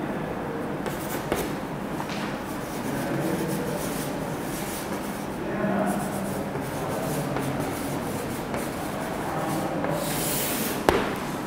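Chalk scraping on a chalkboard as words are written by hand: a run of short rubbing strokes, then a longer, brighter stroke near the end followed by a sharp tap of the chalk.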